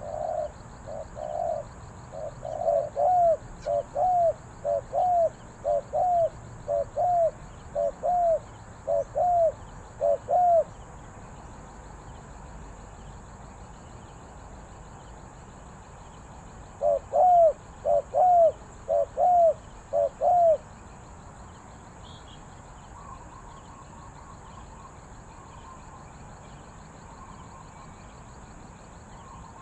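Spotted dove cooing: a long run of short, repeated coos, about two a second, then after a pause a brief run of four more.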